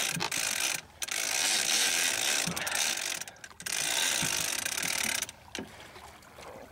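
Big-game fishing reel's ratchet buzzing loudly in three long runs. It breaks off briefly twice and stops about five seconds in.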